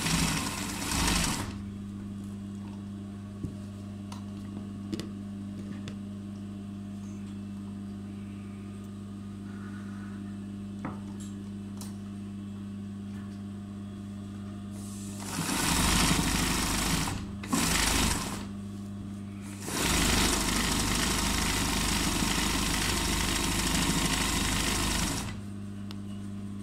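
Free-motion embroidery sewing machine stitching in bursts: a brief run at the start, two short runs a little past the middle, and a longer run of about five seconds near the end. Between the runs there is a steady low hum.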